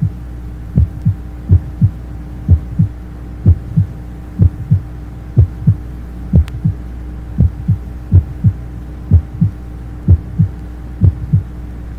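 Normal heart sounds heard through a stethoscope at the mitral area: steady lub-dub pairs of short low thumps, about 65 beats a minute, over a low steady hum.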